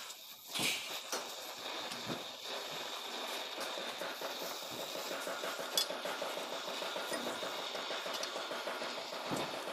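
Gas welding torch flame burning with a steady hiss and a fast flutter while it heats a small steel cup. A sharp metallic clink comes about half a second in, and a lighter tick near the middle.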